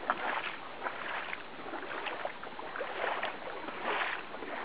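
Creek water running and trickling, with small irregular splashes.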